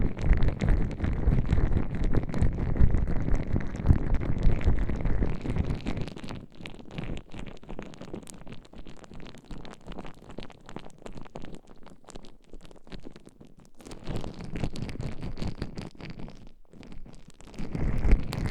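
Gloved hands massaging gel and oil over microphone ears: slippery, squelchy rubbing with small crackles. It is dense and full for the first few seconds, softer and crackly in the middle, and swells again briefly later on and near the end.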